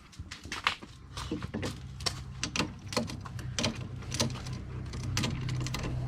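Irregular clicks and knocks of metal parts and hand tools being handled while fitting ATV suspension parts, over a steady low hum.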